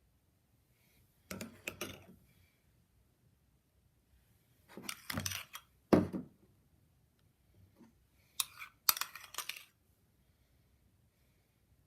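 Three short bursts of clicking and rattling from small hard objects being handled, the middle one ending in a sharp knock.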